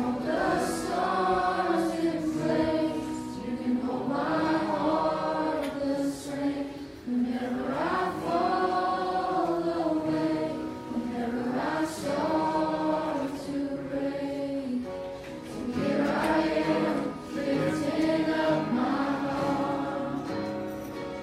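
A church youth group singing a gospel song together in long, sustained phrases, with instrumental accompaniment.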